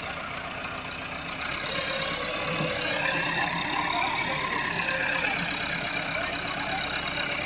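Diesel engine running steadily under load, growing louder for a few seconds through the middle with a pitch that rises and falls.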